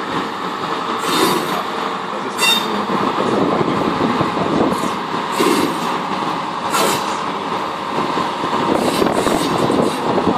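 Railway crane rolling slowly along the track, its steel wheels rumbling and clanking on the rails. Sharp knocks come every second or two, and a brief wheel squeal sounds about two and a half seconds in.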